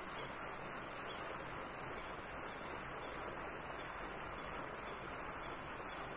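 Steady hiss of water splashing from a pond fountain aerator.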